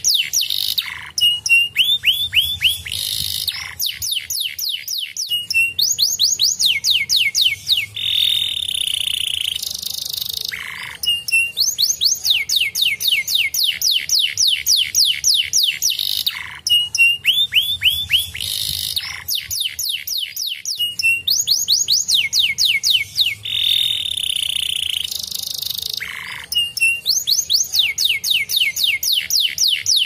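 Domestic canary singing a long, fast song. It is made of rapid trills of short sweeping notes, broken by a few held whistled notes, and the same sequence of phrases comes round again about fifteen seconds later.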